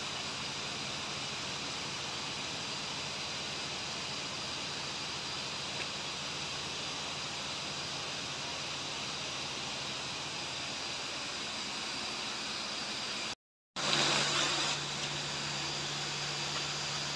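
Steady, even background hiss with no distinct events. After a short dropout about thirteen seconds in, the hiss is louder, with a low steady hum underneath.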